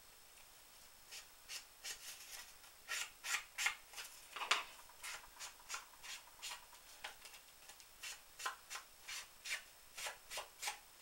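Foam sponge being rubbed along the edges of a cardstock card to ink them: a faint, quick series of short, soft scuffing strokes, about two or three a second.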